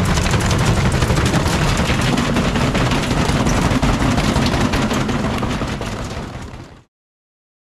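Front-loading washing machine running with an unbalanced load of roosters in its drum, shaking and tipping over with a loud, rapid banging and rattling clatter. The clatter fades out about six seconds in.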